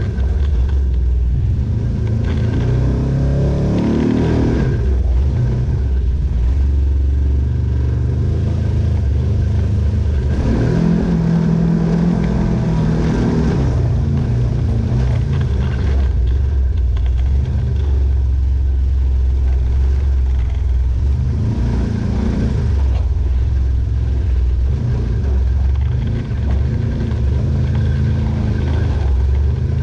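Off-road vehicle engine running steadily, revving up three times: about three seconds in, around ten to thirteen seconds in, and once more about twenty-two seconds in.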